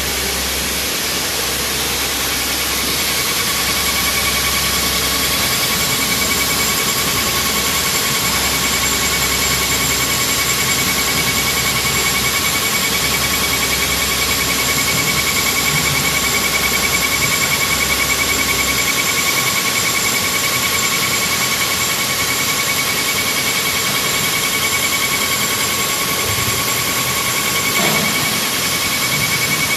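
Face mill on a JOYSUNG LMD4030 portable CNC gantry milling machine cutting a curved metal workpiece. It makes a steady, loud cutting noise with a constant high whine. A low hum underneath drops out about two-thirds of the way through.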